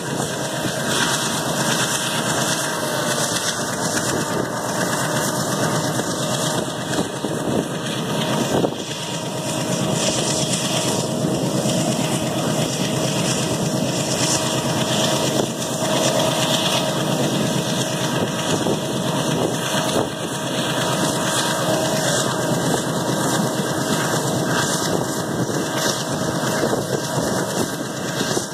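Moving passenger train heard from an open coach window: a steady rush of wind and running noise.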